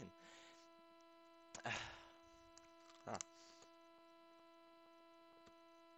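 Crisps being crunched close to a headset microphone: two short bursts about a second and a half apart. A steady electrical hum runs underneath.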